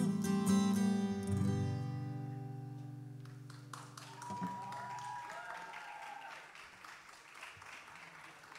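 Acoustic guitar playing the final chord of a song, ringing out and fading away over about four seconds. As it dies, an audience starts applauding.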